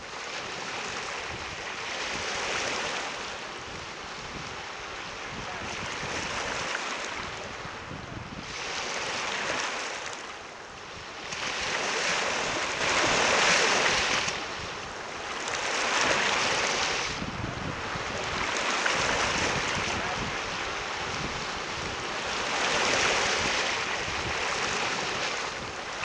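Small lake waves washing in over a pebble shore. The water noise swells and fades with each wave, every two to three seconds.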